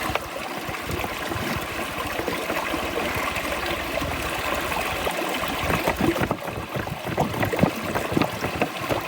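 River water running, with gurgling as a water container is held under the surface to fill.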